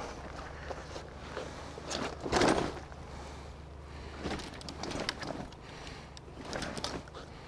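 Rustling and knocking of handling noise, irregular, the loudest burst a little over two seconds in, over a steady low hum.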